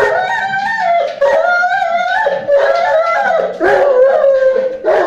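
Neapolitan mastiff howling and yowling at a gas cylinder in agitation: about five long, pitched calls, each lasting roughly a second, one after another with brief breaks.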